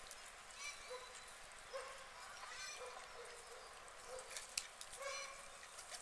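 Mallard ducks calling: short nasal calls, each well under a second, coming singly and in loose runs throughout, with a few sharp clicks about four and a half seconds in.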